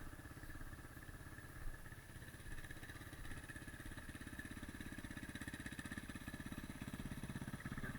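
Dirt bike engine idling with a steady, even pulse, a little louder near the end.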